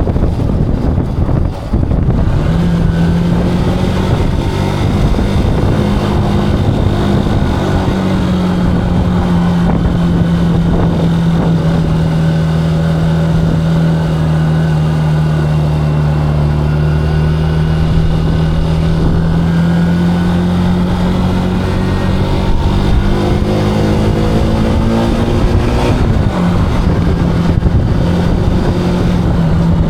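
Zontes cruiser motorcycle engine running at a steady cruise under rushing wind noise. Near the end the engine note climbs slowly, then drops suddenly about four seconds before the end.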